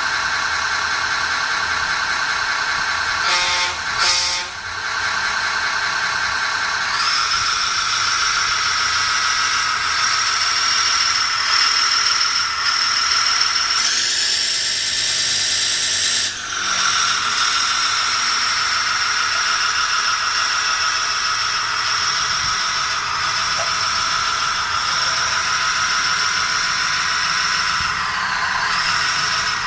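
SM3 sound card in a 1/16 RC Bruder CAT 320 excavator playing a simulated excavator engine through a small speaker, a steady high-pitched drone. It breaks off briefly a few seconds in and changes pitch for a couple of seconds about halfway through.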